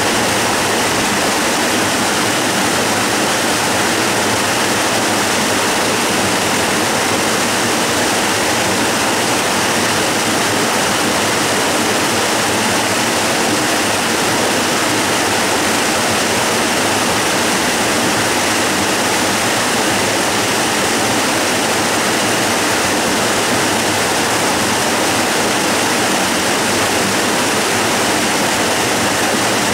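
Middle Falls waterfall rushing steadily: a loud, even, unchanging rush of falling water.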